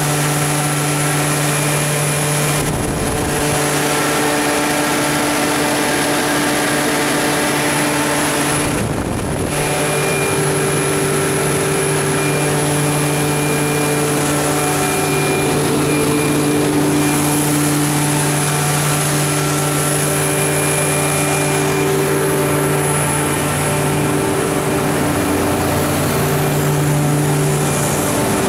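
Cummins GTA28 natural gas V12 engine of a 500 kW standby generator set running steadily at its constant 1800 rpm, heard from inside its sound-attenuated enclosure.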